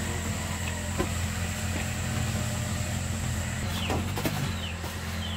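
A steady low mechanical hum, like an engine running, with a few short, high, falling chirps from about four seconds in.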